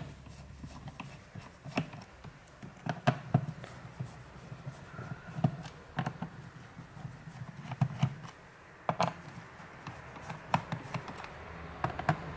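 Screwdriver working the captive screws out of a Dell Latitude 3380's plastic bottom cover: irregular small clicks and taps of the tool and hand against the case.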